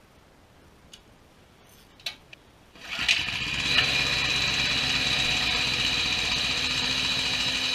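The mini bike's small engine starts about three seconds in and runs steadily at a constant speed, with a strong high whine over a low drone.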